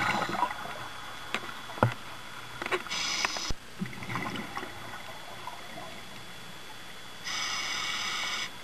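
Scuba diver breathing through a regulator underwater: a steady hiss of inhaling about three seconds in and again for about a second near the end, with rough bubbling of exhaled air between them. A few sharp clicks in the first half.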